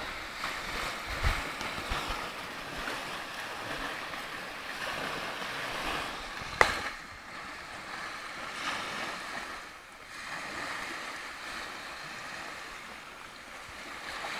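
Small sea waves breaking and washing up on a pebble shore: a steady hiss of surf that swells and fades. There is a sharp click about six and a half seconds in.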